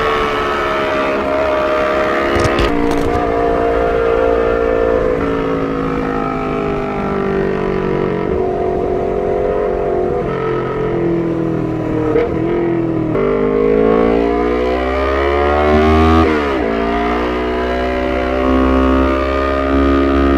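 Honda CBR250RR's parallel-twin engine through a short Proliner TR-1 full-system exhaust, loud and steady. Engine speed falls slowly over the first half. About two-thirds in it climbs, dips briefly at a gear change near the end, then climbs again.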